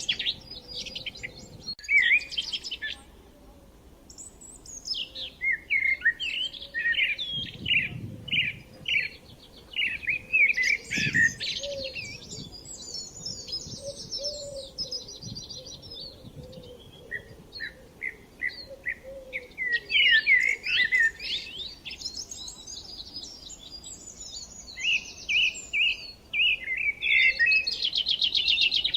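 Songbirds singing in a woodland chorus: quick chirps, rapid trills and sliding whistled notes in overlapping bursts with short lulls between.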